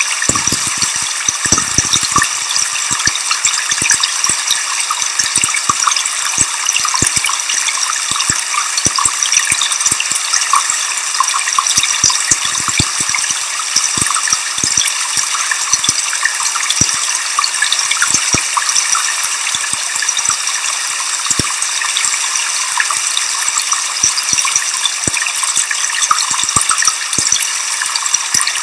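Waterfall rushing steadily, mixed with white noise: a dense, even hiss, strongest in the upper range with little low rumble.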